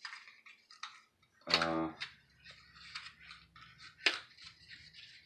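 Small cardboard and plastic accessory packets being handled and opened by hand: light rustling and scattered clicks, with one sharp click about four seconds in. A brief murmur of a man's voice comes about a second and a half in.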